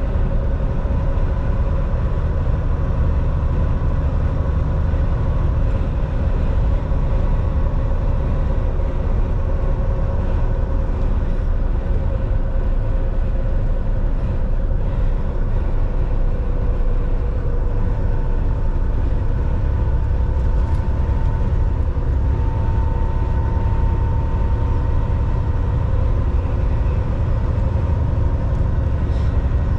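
Cab of a Volvo semi-truck cruising at highway speed: a steady low engine drone under road and wind noise, with a faint even hum held throughout.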